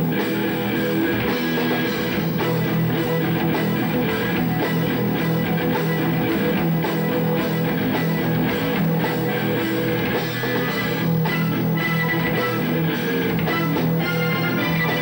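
Live rock band playing at a steady volume: electric guitars over a drum kit.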